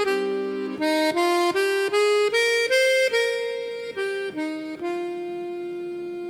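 Harmonica playing a hymn melody in chords: a run of short, separate notes at about three a second, then a long held note from near the middle.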